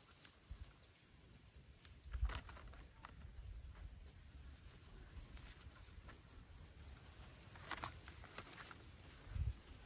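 An insect chirping in short high trills about once a second, over a few soft knocks and rustles from hands handling small fish in a bamboo basket.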